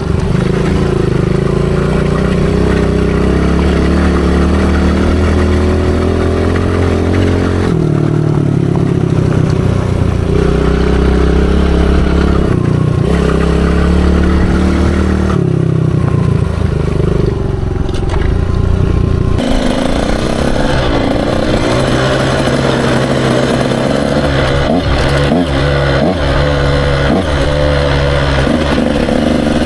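Dirt bike engine running under throttle while being ridden, its note stepping up and down several times. About two-thirds of the way through, the sound changes abruptly to a second dirt bike's engine, brighter, with frequent irregular clicks and rattles.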